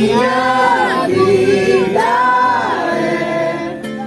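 A group of voices singing a Portuguese Christian worship song with little or no instrumental backing, in long held, gliding notes.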